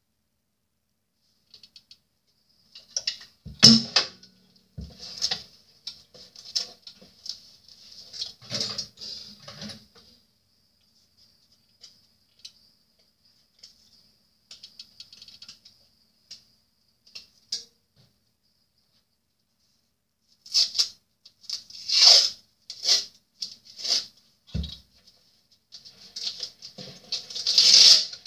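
Hands rustling and crinkling a small item in short, irregular bursts, busy at first, sparse in the middle and busy again near the end, with a dull knock about four seconds in and another a few seconds before the end.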